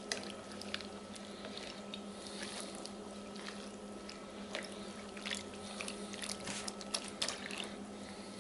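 Plastic spoon stirring navy beans in water in a slow cooker crock: faint wet sloshing and squishing, with scattered light clicks of the spoon against the crock.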